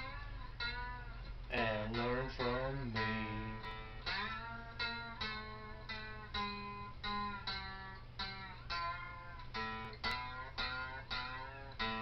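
Lap steel guitar played with a steel bar: a slow run of plucked single notes, some sliding up and down in pitch, over a steady low hum.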